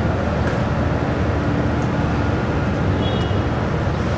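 Steady low rumble of outdoor background noise, with a brief faint high tone about three seconds in.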